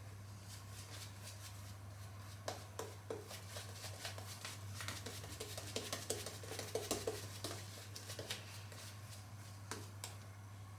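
Shaving brush (Frank Shaving Manchurian) being worked through Lather Bros shaving soap to build lather, giving irregular soft scratchy swishes and small clicks from about two seconds in to near the end, over a steady low hum.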